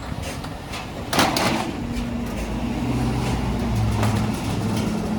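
A vehicle engine running low and steady, getting a little louder from about two seconds in, with a sharp clank about a second in.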